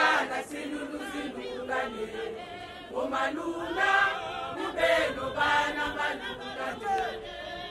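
A large group of marchers singing together in chorus, voices only, in chant-like phrases that rise and fall.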